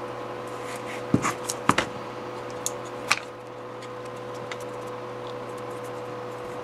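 A few light clicks and taps from hands handling small objects, several about a second in and one about three seconds in, over a steady electrical hum.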